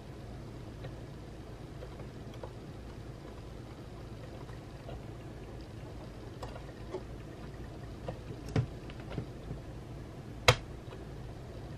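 Small clicks and taps of hands handling parts inside an opened Mac mini (Mid 2011) aluminium case, over a low steady hum. Faint ticks come and go, then two sharper clicks in the last few seconds, the second the loudest.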